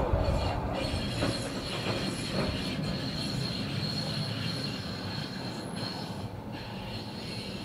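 A train passing by: a steady rumble of railcars with a high, steady squeal on top, slowly fading.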